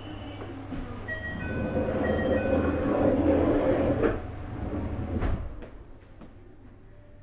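JR Hokkaido 733 series electric train, heard aboard the motor car, pulling away from a station: the traction inverter's tones step through several pitches while motor and wheel noise builds. Two sharp clunks come about four and five seconds in, then the running noise falls quieter near the end.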